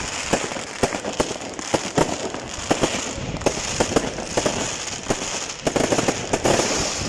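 Fireworks going off: a rapid, irregular run of sharp bangs and crackles, several a second.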